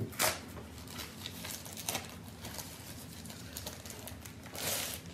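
Crinkling and rustling of a thin plastic protective sleeve being pulled off a drone's remote controller, with irregular crackles and a louder rustle near the end.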